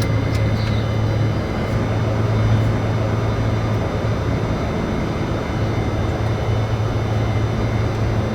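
Steady flight-deck noise inside a Boeing 747-400 freighter while it lines up on the runway: engines at low power and air-conditioning rush, with a steady low hum underneath.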